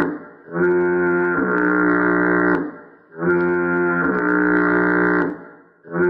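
The SpongeBob foghorn sound effect: a loud, low horn blast with many overtones that shifts to a new pitch about a second in. Two full blasts about three seconds apart, with the next one starting right at the end.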